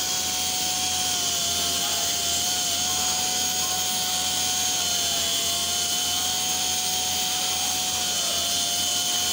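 Pneumatic die grinders running together in a steady high whine over a hiss of air, the main tone dipping slightly now and then.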